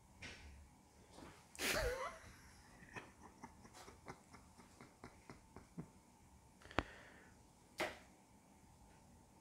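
A cat playing with a wand toy at a corrugated-cardboard scratcher: faint scuffs and light clicks of paws on cardboard and string. A short louder rustle comes about two seconds in, then a run of soft ticks, then two sharper clicks near the end.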